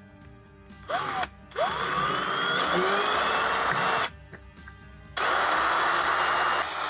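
Handheld power tool cutting into the broken-off steel bolt stub, run in a short burst, then a long one of about two and a half seconds, then another that eases lower near the end, its pitch sweeping up and down as the speed changes.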